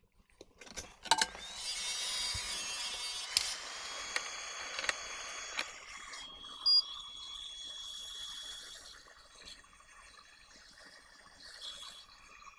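Desoldering a small surface-mount TVS diode from a circuit board: a few seconds of hissing broken by sharp clicks of tools on the board, then a fainter steady high whine with small scattered clicks.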